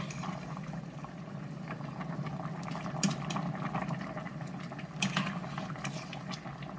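Pot of chicken noodle soup at a rolling boil, bubbling steadily, with a metal ladle stirring and a few sharp clicks as it knocks against the stainless steel pot.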